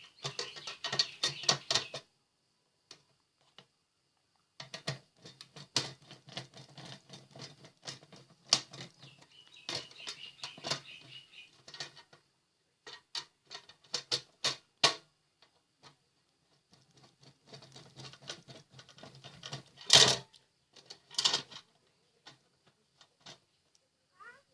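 The plastic housing of a rice cooker being handled and its cover fitted back on: scattered small clicks, taps and scraping with short pauses, and a sharper knock about twenty seconds in.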